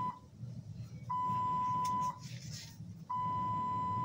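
A bedside medical-equipment alarm beeping a steady high tone, about one second on and one second off. There is a brief rustle about two seconds in.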